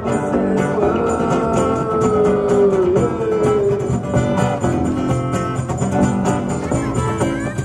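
Live band music with no singing: a guitar lead holds one long note that slowly slides in pitch, over the strumming and beat of the band.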